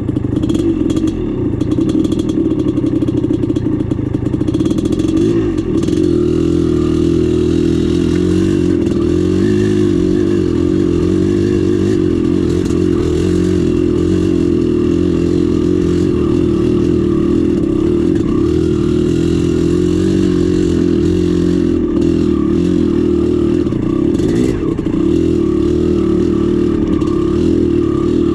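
Dirt bike engine running steadily at moderate revs while the bike is ridden along a trail, its pitch rising and falling slightly.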